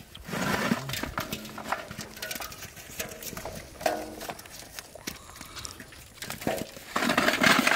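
Hands squelching through wet mud as fish thrash and slap in it, in a run of irregular wet knocks. Near the end comes a louder burst of thrashing and splashing as a caught fish lands among the others in the metal basin.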